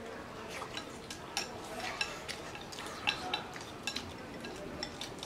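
Chopsticks clicking and scraping against porcelain rice bowls as two people shovel in rice, a run of light, irregular clinks.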